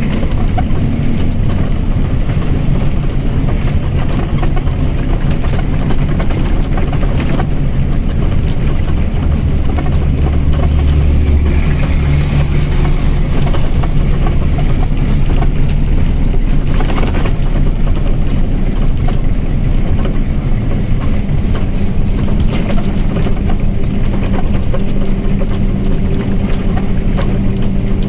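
Mercedes-Benz OF-1722M Euro III bus running on the move, its diesel engine and drivetrain giving a continuous low drone with a steady tone from the rear differential. The hum swells lower and heavier about ten seconds in and settles into a steadier pitch near the end.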